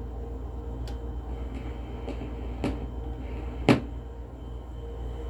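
Stylus tracking the silent lead-in groove of a home-cut clear Lexan record: steady low hum and surface noise with about five scattered clicks, the sharpest about two thirds of the way in.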